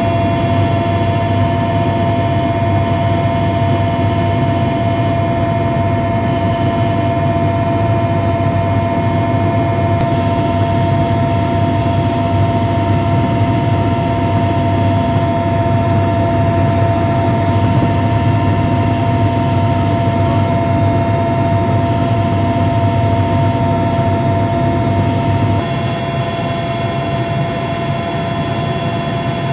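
Steady engine drone and airflow noise heard inside an aircraft cabin, with a constant hum of several steady tones. About 26 seconds in the sound drops slightly and its tones shift, as the engine power changes.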